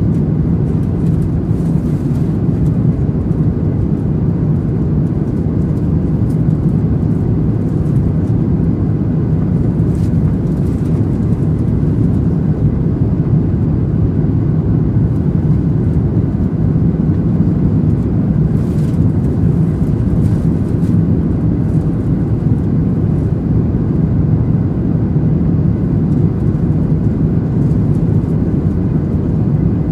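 Steady low cabin rush of a Boeing 737-700 airliner on approach with flaps down, CFM56 turbofan engines and airflow heard from a window seat over the wing.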